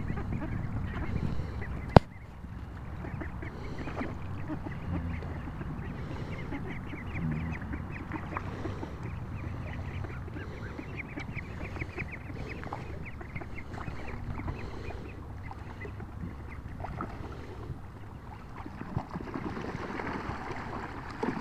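A flock of young Embden goslings and Welsh Harlequin ducklings calling over and over as they swim and splash in a pond, with a sharp click about two seconds in.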